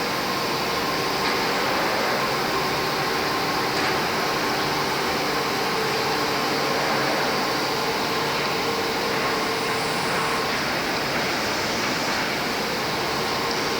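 IMEAS LCSI 190 two-head panel sanding machine running steadily: an even rushing noise with a faint constant hum underneath.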